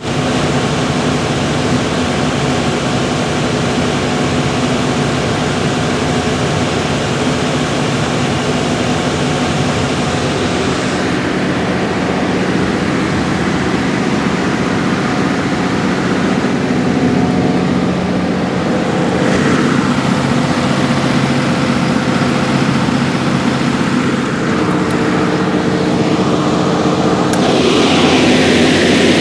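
Large diesel generator set, rated 275 kVA, running steadily under a continuous engine drone. A louder hissing sound joins in near the end.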